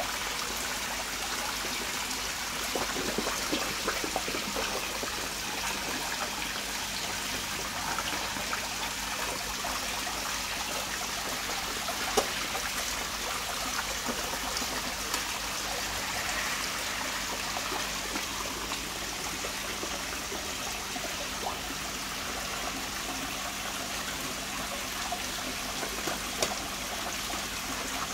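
Streams of water falling from spouts into a koi pond, splashing steadily, with a few sharper splashes now and then.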